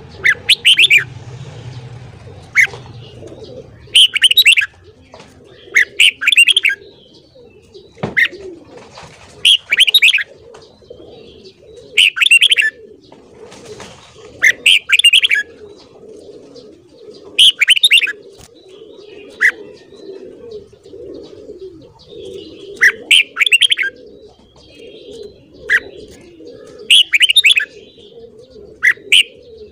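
Red-whiskered bulbul singing: short, loud, bright song phrases repeated about every two to three seconds, over a faint, steady low murmur.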